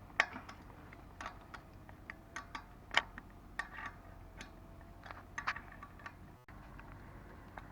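Two open-end spanners working a training-wheel axle bolt and its nylon-insert lock nut on a child's bicycle: irregular metallic clicks and taps as the nut is tightened.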